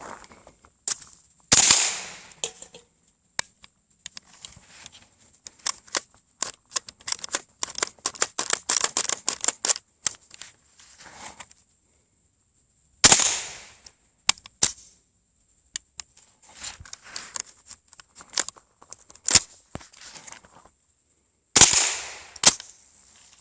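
AR-15-type rifle with a .22LR conversion kit firing three single shots, spaced about eleven and eight seconds apart, each report trailing off in echo. Between the shots come many small metallic clicks and rattles of the rifle being handled.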